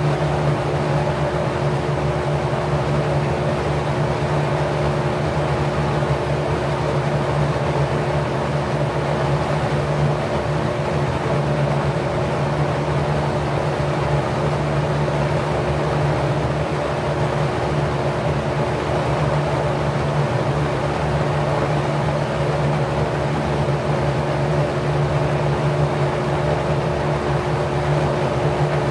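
Packard 99319 single-speed 1/5 hp electric motor running at about 1050 rpm, spinning a 20-inch four-blade propeller. It makes a steady low hum with a constant rush of air from the blades.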